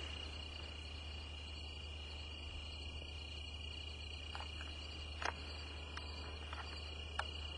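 Crickets trilling steadily over a low hum, with a few sharp clicks, the two clearest in the second half.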